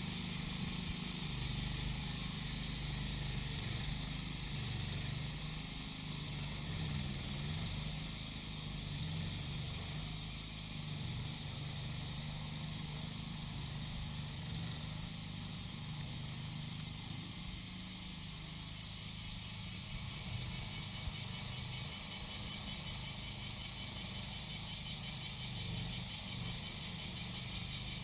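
Small engine of a grass-cutting machine running steadily, with cicadas singing over it in a high drone that pulses regularly near the end.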